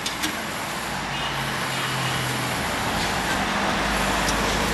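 Street traffic: a motor vehicle's engine running and passing, getting gradually louder toward the end, over a steady road noise, with a couple of faint clicks at the start.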